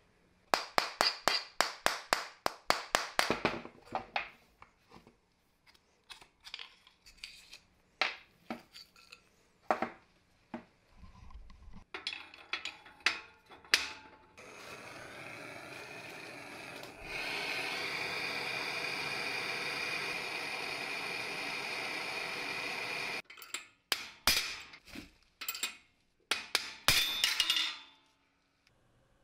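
Metal workshop handling of drill-press parts: a quick run of sharp clicks at first, then scattered metallic clinks. A steady noise follows for several seconds, then more clinks and knocks as the steel drill chuck and plates are handled.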